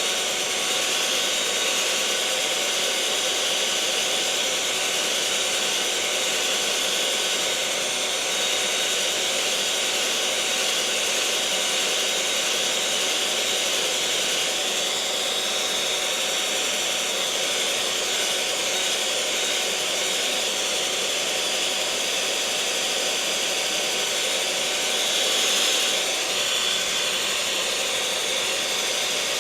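Electric mixer motor running steadily: a continuous whirring hum with a steady high whine, swelling slightly for a moment near the end.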